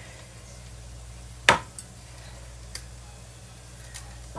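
Kitchen handling: one sharp knock about a second and a half in, then a few light clicks, over a low steady hum.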